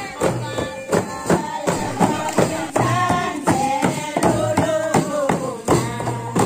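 Singing of a melodic devotional song over a steady beat of frame drums, about three strikes a second.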